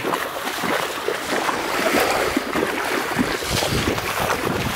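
Feet wading through shallow floodwater, sloshing and splashing with each step, with some wind on the microphone.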